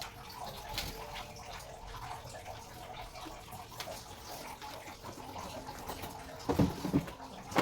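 Water running steadily, with a few small clicks and a couple of louder thuds near the end.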